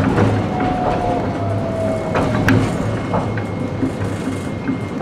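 Running noise heard inside a Toyohashi Railway T1000 low-floor tram on street track: a steady rumble from the wheels and running gear, with scattered clicks and knocks. A faint whine slowly falls in pitch over the first two seconds.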